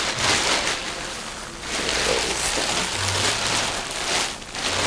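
Thin plastic bags crinkling and rustling as they are opened and handled by plastic-gloved hands, in several loud swells.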